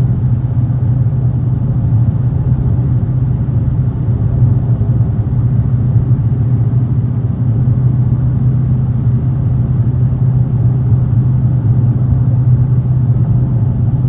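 Dodge Challenger Hellcat's supercharged V8 and exhaust giving a steady low drone while driving at an even speed.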